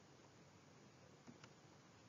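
Near silence: faint room tone, with a faint click or two about a second and a half in as the presentation slide is advanced.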